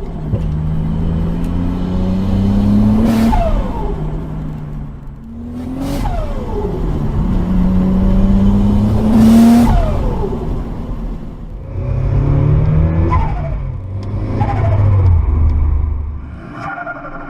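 Turbocharged car engine accelerating hard, its pitch rising, then lifting off the throttle about four times. Each lift-off brings a short turbo flutter (compressor surge chatter with no blow-off valve) and a falling turbo whistle.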